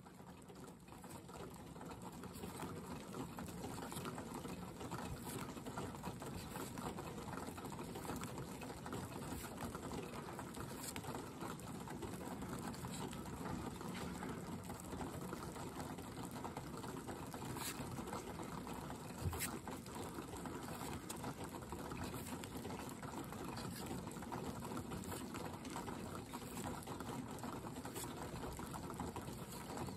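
Steady rain with melting ice dripping from a pecan tree's branches, a hiss scattered with small drips and ticks and one sharper tap about two-thirds of the way in. It fades in over the first couple of seconds.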